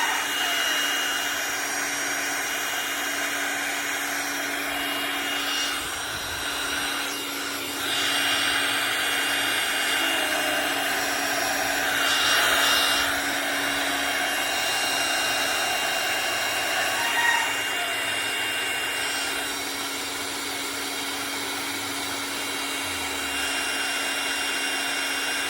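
Electric air pump running steadily as it inflates an inflatable boat through its valve: a constant whirring blow with a steady hum, swelling briefly louder about halfway through.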